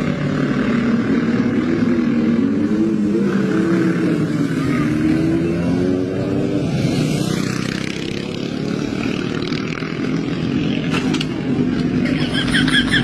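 Sport motorcycle engines running and revving as the bikes ride along, the pitch rising and falling.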